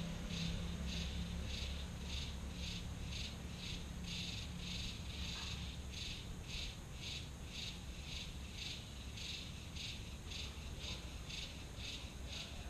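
An insect chirping in an even rhythm, about three chirps a second, over a low steady hum.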